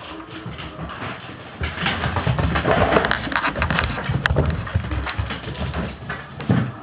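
Border collie scrambling about on the floor in play: a dense run of scuffles and quick clicks, loudest in the middle.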